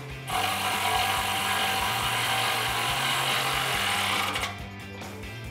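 Power ratchet running steadily, driving a 16 mm socket on an extension to spin a nut down onto a steel bumper's mounting stud. It stops abruptly about four seconds in. Faint background music underneath.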